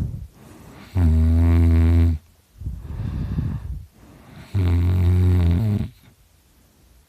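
A drunk man snoring really loud: two low-pitched, buzzing snores about a second long each, with a rough, noisy breath between them, then quiet about six seconds in.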